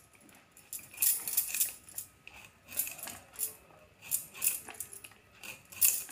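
A small knife scraping and cutting the peel off a raw beetroot, with the metal bangles on the wrists clinking in short irregular jingles every second or so.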